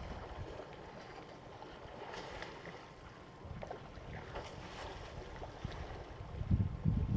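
Wind buffeting the microphone, a low rumble that gusts into heavy thumps near the end, over quiet bush ambience with a few faint high chirps.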